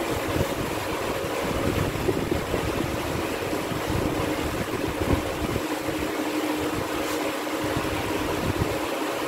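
A chalkboard duster wiping a blackboard: a steady scrubbing, rushing noise with an uneven low rumble, and a faint steady hum underneath.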